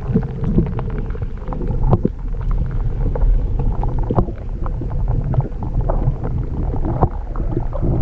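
Underwater sound through a submerged camera: a muffled low rumble of moving water with frequent small clicks and knocks.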